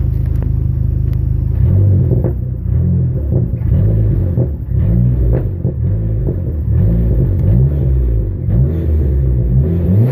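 Dodge SRT-4's turbocharged 2.4-litre four-cylinder idling, then revved up and down repeatedly from about a second and a half in, heard through its stock exhaust with the electric cutout closed.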